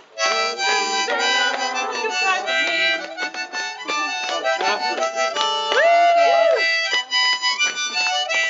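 Harmonica played with held chords and single notes, some notes bending up and down in pitch.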